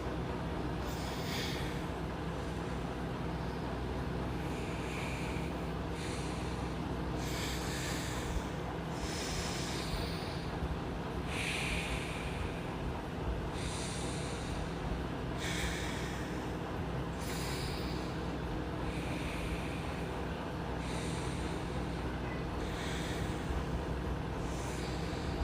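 A person breathing forcefully through the nose, a hissing breath every second or two, over the steady hum of a room air cooler.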